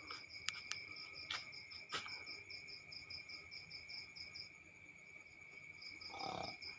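Crickets and other insects chirping: a steady high trill with a pulsed chirp repeating about five times a second, which breaks off for a moment past the middle and starts again. A few faint clicks and a brief rustle near the end.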